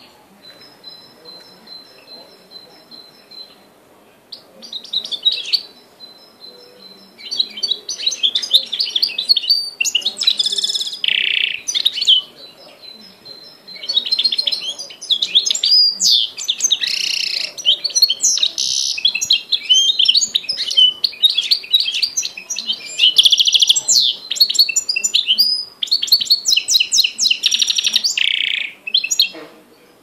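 Goldfinch × canary hybrid (a 'mule') singing. It starts with a few soft, thin high notes, then runs into several long, fast phrases of rapid trills and twittering, with short pauses between them.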